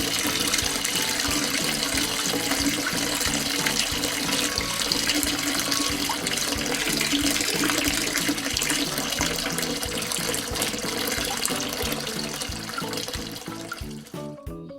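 Liquid pouring steadily as fuel is poured into a tractor's tank, over background music. The pouring fades away in the last second or two.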